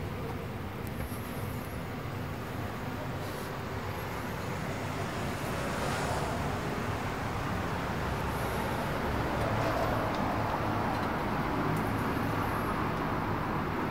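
Steady background noise of distant road traffic, swelling slightly around the middle.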